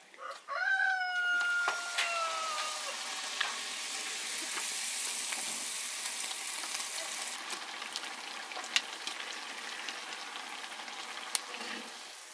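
Sel roti batter frying in hot oil: a loud sizzle starts suddenly about half a second in, then eases slowly, with a few sharp pops. A long falling tone sounds over the first few seconds.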